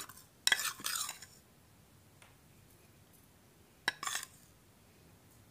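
Cumin seeds sprinkled into a glass bowl of chopped chicken and vegetables: two short rattling bursts, each starting with a click, about half a second in and again around four seconds.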